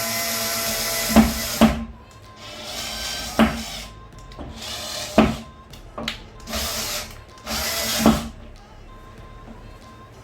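Cordless battery drill driving screws into a cabinet hinge in about five short bursts, the first running into the second second and the rest shorter, each ending with a sharp click as the screw seats.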